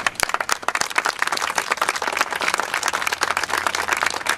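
A crowd applauding: many hands clapping densely and irregularly.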